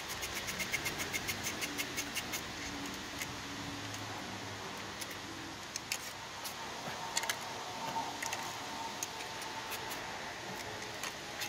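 Hand socket ratchet clicking quickly, about six clicks a second for the first two seconds or so, as a bolt is run back in on the scooter; then a few scattered metal clicks and clinks of tools.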